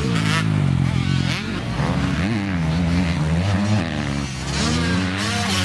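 Motocross dirt bike engines revving hard, the pitch rising and falling again and again as the throttle is worked.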